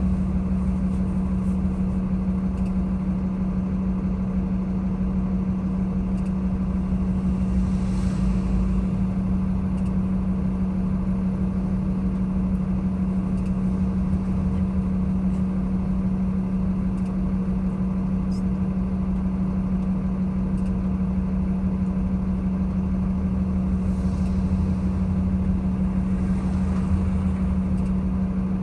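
Vehicle engine idling in stopped traffic: a steady low hum under a constant rumble. Faint hiss swells about eight seconds in and again near the end.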